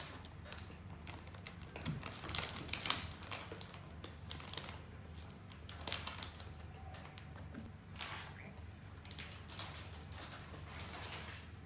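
Faint, irregular clicks and light taps over a steady low hum.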